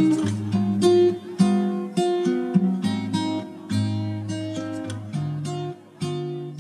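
Background music: strummed and plucked acoustic guitar.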